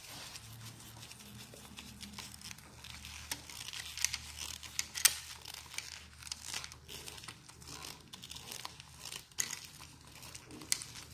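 Rustling, scraping and scattered sharp clicks of stiff electrical wires and a four-way switch being handled as the wires are fitted to the switch, with one louder click about halfway through.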